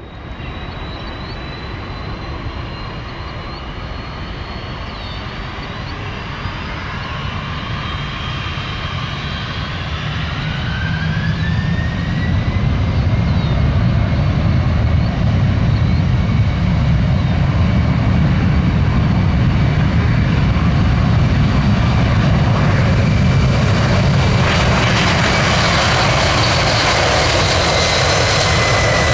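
FedEx McDonnell Douglas MD-11F trijet's engines spooling up to takeoff power, a whine rising in pitch about ten seconds in as the jet noise grows louder, then holding steady and loud through the takeoff roll.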